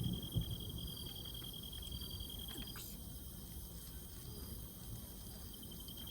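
An insect trilling steadily at a high pitch, breaking off about halfway and starting again near the end, over a low rumbling background.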